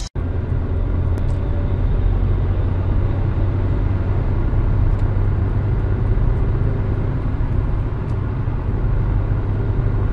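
Steady low road rumble of a car driving on a highway, engine and tyre noise as picked up by a dash cam inside the cabin, with a few faint ticks.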